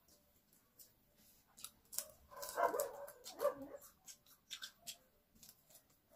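Crispy fried chicken crackling and crunching as it is torn apart and chewed close to the microphone: a string of short, sharp crisp clicks. About two and a half seconds in, a louder pitched call stands out for about a second.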